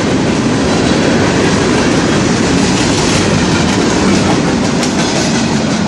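Norfolk Southern freight train's cars rolling past, a steady loud noise of wheels on rail.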